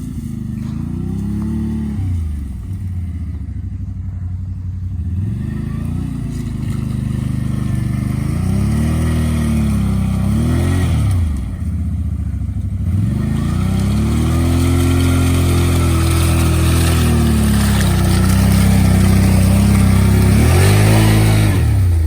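Honda Rancher 420 ATV's single-cylinder engine revving up and down repeatedly as it is ridden through mud, held high for several seconds late on.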